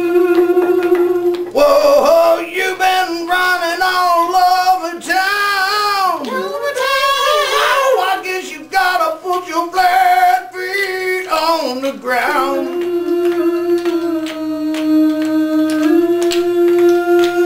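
A single voice singing a long wordless vocal run: a held note, then a stretch of wavering, sliding notes with vibrato, ending on another long held note that steps up slightly near the end.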